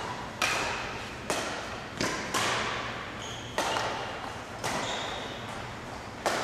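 Badminton rally: rackets hitting the shuttlecock in sharp cracks, about seven or eight of them, roughly once a second, each echoing in a large hall.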